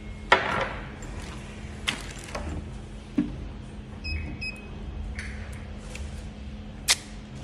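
Plastic bottles and parts knocked and set down on a bench-top bottle-cap torque tester, a few sharp knocks with the loudest just after the start, and two short electronic beeps from the tester's keypad about four seconds in. A steady low hum runs underneath.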